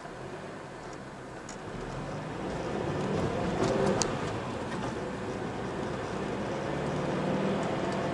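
Car engine and road noise heard from inside a moving car, growing louder about two seconds in.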